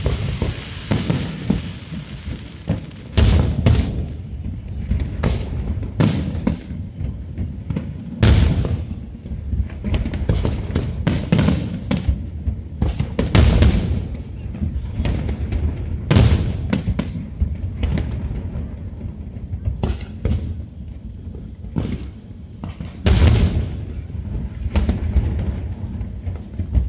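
Aerial fireworks shells bursting in an irregular barrage of sharp bangs with deep low rumble, several a second at times, the heaviest blasts coming at intervals of a few seconds.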